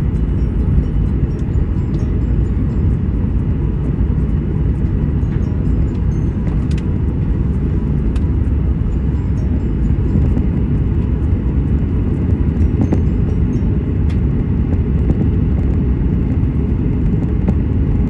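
Steady low rumble of a jet airliner heard from inside the passenger cabin, engine and airframe noise, with faint scattered ticks and rattles.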